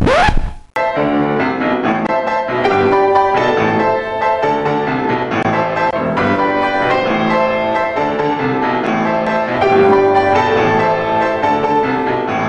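Piano music playing, with a regular beat. The previous song cuts off just before it starts, under a second in.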